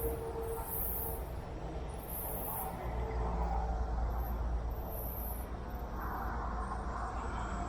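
Wind buffeting an action camera's microphone: a steady low rumble that grows stronger about three seconds in.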